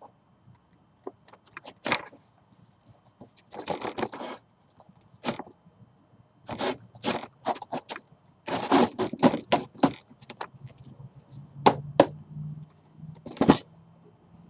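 Irregular scrapes, rubs and clicks of hands handling a black display rack of silver chains with the camera held against it, the busiest stretch about nine seconds in.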